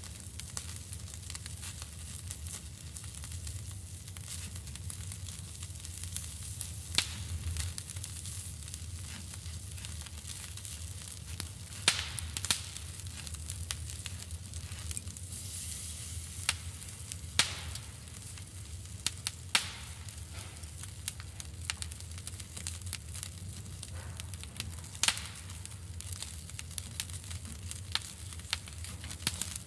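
Sausage sizzling on a grill grate over glowing charcoal: a steady hiss of fat cooking, broken by sharp crackles and pops every few seconds.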